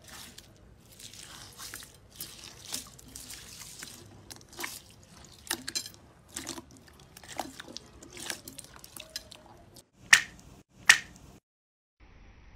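Slime being squeezed and poked by hand: a run of soft wet squelches and sticky pops, with two sharper, louder pops a little under a second apart near the end.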